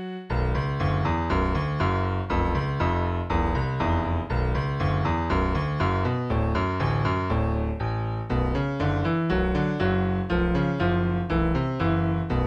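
Background music played on a keyboard, with evenly repeating notes over a strong bass line, starting a moment in.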